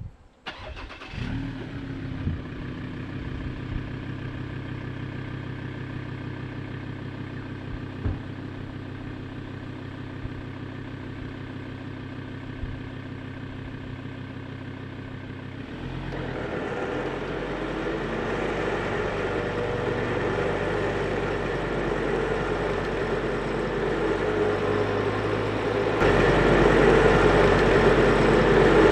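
Ford Ranger's engine starting about a second in, then idling steadily. About halfway through, a louder working noise from the vehicle-mounted winch hauling in its line joins the engine and grows gradually. Near the end it steps up again as the truck is put in drive, torque going to the wheels without wheelspin, to help the winch pull the bogged truck and caravan out of the mud.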